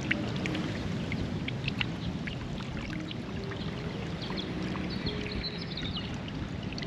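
Water sloshing and splashing steadily, with many small scattered splashes and drips.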